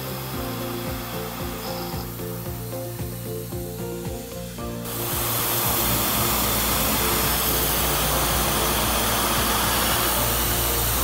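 Tormach PCNC 770 CNC mill cutting an aluminium part. About five seconds in, a loud steady hiss and hum take over as a 1/4-inch spot drill runs at 5000 RPM.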